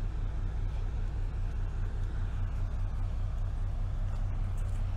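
Passing tanker ship's engine: a steady low drone with a constant deep hum.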